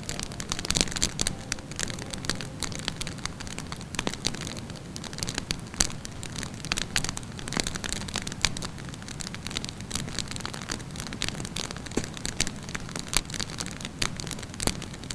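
Wood fire crackling in a fireplace: many irregular sharp pops and snaps over a soft steady low rush.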